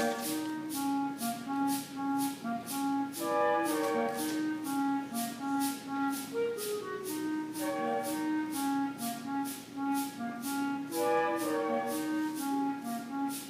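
Middle school concert band playing a tune, with woodwinds carrying the melody over held notes. A shaken percussion instrument keeps a steady beat of about two to three strokes a second.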